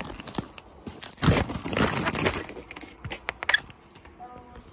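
Plastic Popsicle wrapper crinkling and crackling as it is handled and pulled open. The crackling is densest for about a second starting about a second in, then thins to scattered crackles.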